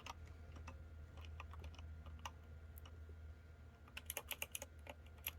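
Keys of a 65% mechanical keyboard being pressed: a few scattered, faint key clicks, then a quick run of keystrokes about four seconds in.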